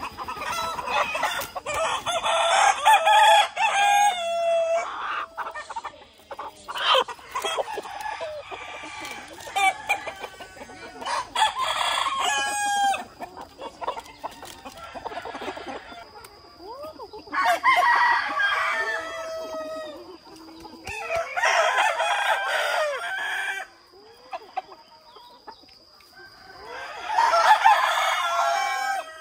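Roosters crowing repeatedly, about five long crows spaced through the stretch, with hens clucking between them.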